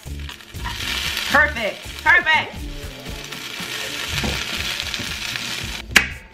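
Shredded hash browns sizzling in hot oil in a nonstick skillet, with a spatula stirring and pressing them. Two brief pitched sounds come about a second and a half and two seconds in, and there is a sharp click near the end.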